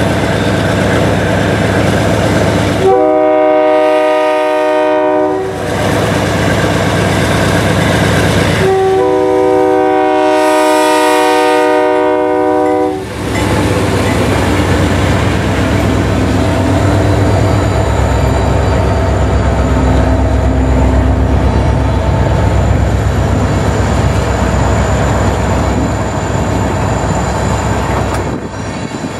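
Diesel locomotive air horn sounding two chords close by, a short blast about three seconds in and a longer one of about four seconds, over the running engines of a GE C40-8 and a second diesel locomotive passing. After the locomotives, covered hopper cars roll by with wheels clicking over the rail joints.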